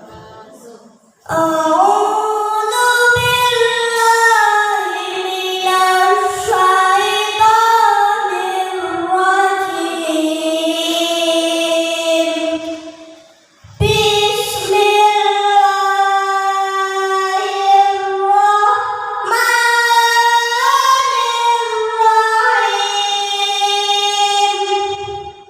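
A child's voice singing unaccompanied in long, held melodic phrases, with one breath pause about halfway through.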